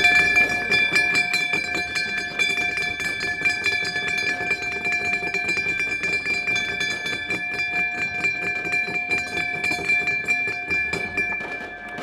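Ceremonial stock-exchange gong struck over and over with mallets by several people, ringing with a steady held tone over a clatter of quick strikes. The ringing stops near the end.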